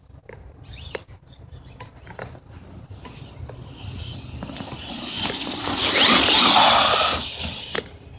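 HobbyKing Rattler RC truck running over grass on a 2S LiPo with stock gearing: its electric motor and gear drivetrain whir. The sound builds and is loudest about six seconds in, with a rising whine, then falls away near the end.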